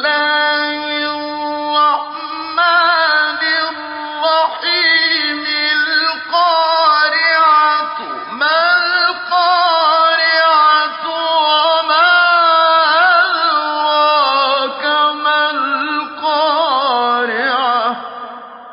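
A man reciting the Quran in a melodic tajweed chant, drawing out long, ornamented held notes with brief pauses for breath. The voice stops near the end, leaving an echo that dies away.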